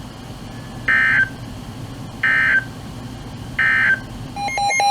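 Three short bursts of EAS digital data tones, about a second and a half apart: the end-of-message code that closes a National Weather Service warning. Near the end, a fast, evenly pulsing electronic beeping starts and is louder than the bursts.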